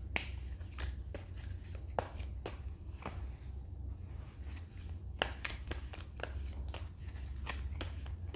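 Tarot cards being handled: a string of irregular sharp snaps and taps as cards are shuffled and laid down, over a low steady hum.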